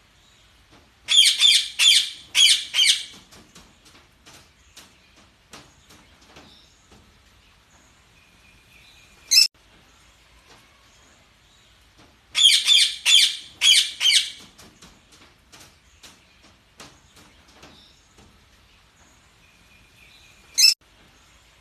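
Budgerigars chattering: bouts of rapid, high, scratchy squawks twice, single sharp calls, and soft chirps and ticks in between. The same sequence repeats about every eleven seconds.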